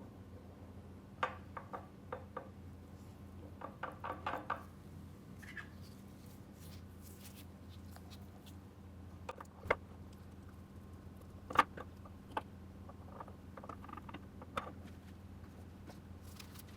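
Scattered light clicks and taps, some in quick clusters, from small parts and tools being handled over a steady low hum.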